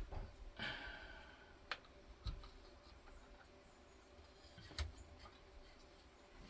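A short breath out, then a few faint, separate clicks and knocks from handling the crossbow.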